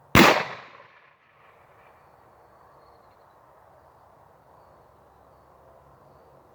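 A single shot from a single-shot shotgun just after the start, one sharp report fading away over about a second.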